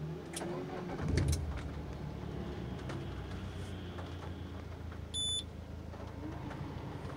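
Peugeot RCZ's 1.6-litre THP (Prince) turbocharged four-cylinder petrol engine catching about a second in and settling into a steady idle. A short dashboard warning chime sounds about five seconds in with the engine-fault warning, a fault traced to a failing high-pressure fuel pump (fuel rail pressure too low, code P0087).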